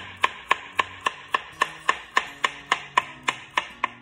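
Small paring knife slicing a peeled cucumber into thin rounds on a plastic cutting board: a steady run of sharp taps, nearly four a second, as the blade goes through and hits the board.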